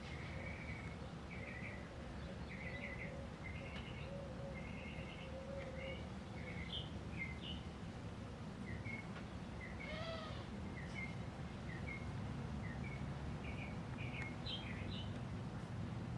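A TAT Deluxe ceiling fan runs with a steady low hum, while birds chirp and sing in short repeated phrases throughout.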